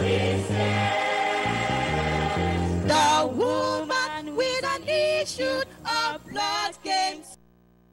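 Gospel choir holding the last chord of a chorus over a stepping bass line, then two female soloists singing a verse line into microphones, their melody gliding and wavering. The music breaks off briefly near the end.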